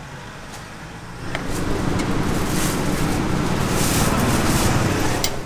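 Street traffic: a motor vehicle passing close by, its noise swelling about a second in, holding loud, then cutting off suddenly.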